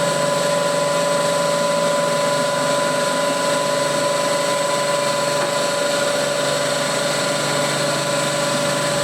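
Ingot grinding machine running a rough-grinding stroke: its cup grinding wheel spins while the table traverses. The sound is a steady machine whine with several held tones over an even hiss.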